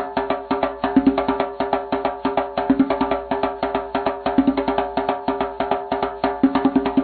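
Background music with a fast, even percussive beat over steady sustained tones.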